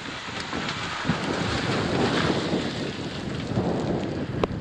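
Thunderstorm wind and rain, a dense steady rushing noise, with a few sharp ticks about a second in and near the end.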